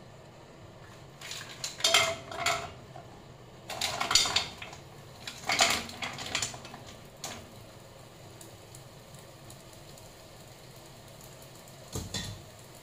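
Mussels in their shells tipped from a stainless mesh colander into a frying pan, the shells clattering against the pan and each other in three quick bursts, with clinks of metal and a glass lid. A single short knock near the end.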